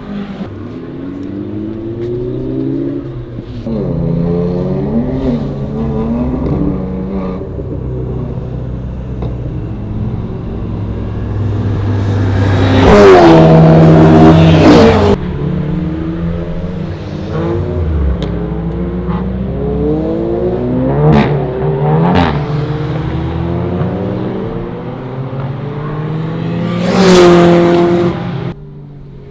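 Car engine on a race circuit, revving up repeatedly with drops in pitch at the gear changes, with two louder full-throttle stretches. It cuts off suddenly near the end.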